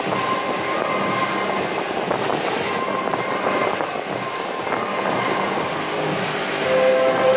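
Several Parrot Bebop 2 quadcopter drones flying together, their propellers whirring in a steady, dense whine. Near the end, music with long held notes comes in and gets louder.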